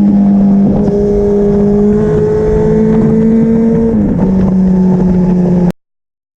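Kawasaki ZX-14R's inline-four running through an Akrapovic exhaust at steady high revs, the pitch creeping up slightly and then dropping a step about four seconds in. The sound cuts off abruptly near the end.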